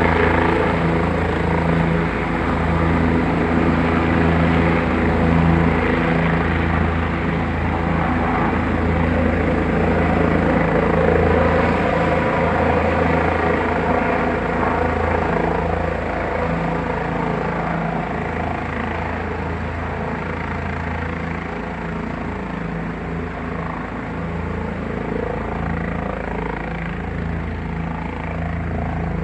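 Helicopter running, its rotor and engine making a loud, steady low drone that pulses in strength and eases off a little in the second half.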